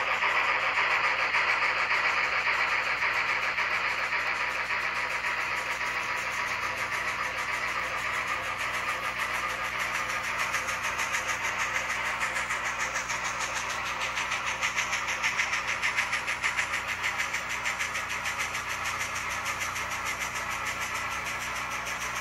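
N scale model trains running on the track: a steady whirring with a fast, fine clicking rattle, swelling a little about fifteen seconds in.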